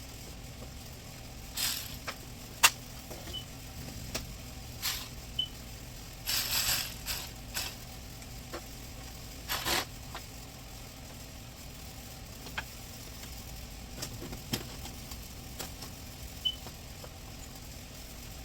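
Scattered clicks, knocks and short rattles of hands and tools working on car parts, with one sharp knock about two and a half seconds in, over a steady low hum.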